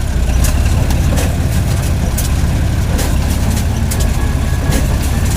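John Deere 4230 tractor's six-cylinder diesel running steadily under load while pulling a small square baler, with irregular sharp clicks and clatters from the baler machinery, its pickup guards damaged by a rock.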